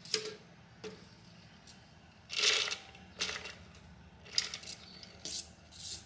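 Steamed mung beans being tipped and scraped out of a stainless steel steamer basket into a blender jar: a series of short rustling, scraping bursts, the loudest about two and a half seconds in.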